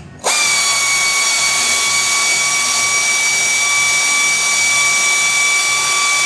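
Power tool tightening the frame bracket bolts: it starts abruptly with a loud, steady, high whine and hiss and runs without a break.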